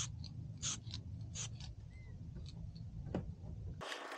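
Aerosol can of etch primer being shaken: its mixing ball rattles in short, sharp clicks, about two or three a second, over a low rumble of wind. The sound changes abruptly just before the end.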